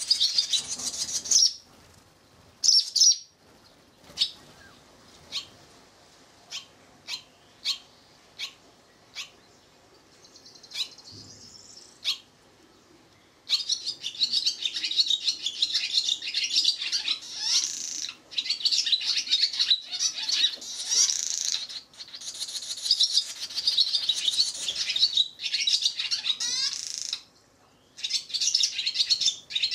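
Barn swallow nestlings and adults at a mud nest: bursts of rapid, high chirping and twittering as an adult comes in to feed, with a quieter stretch of single spaced chirps in between.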